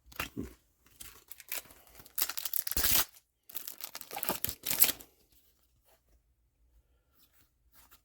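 A trading card booster pack wrapper being torn open and crinkled in the hands, a series of ripping and rustling bursts that stops about five seconds in.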